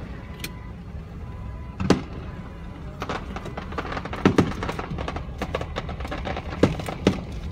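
Aerial fireworks shells bursting: several sharp booms about a second or two apart, with a run of crackling between them in the middle.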